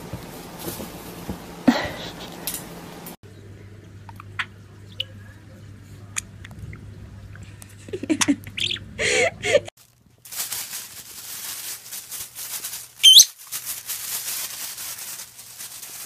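Pet parrots calling: a few short chirps about eight to nine seconds in, as a budgerigar plays with a small ball, and one sharp whistled call that swoops up and down about thirteen seconds in.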